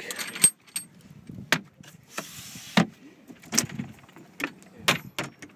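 Cabin door of a small fiberglass cruiser being unlatched and opened: a run of sharp knocks and clicks from the latch and door, with a brief scraping rasp about two seconds in.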